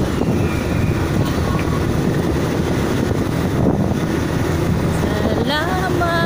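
Motorcycle engine and road noise, with wind rushing over the microphone while riding at speed. About a second before the end, a rising tone levels off and holds.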